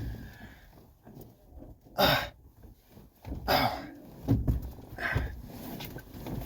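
A man's short, strained breaths and grunts, four of them a second or so apart, as he struggles to pull his hand free.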